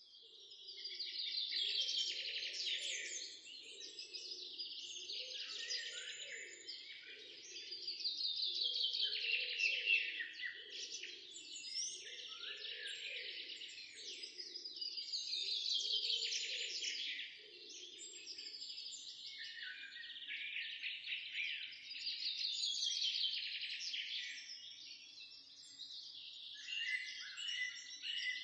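House finch singing its long, warbled song over and over, each phrase lasting two to three seconds and sliding down at the end. A fainter low sound runs underneath for the first two-thirds.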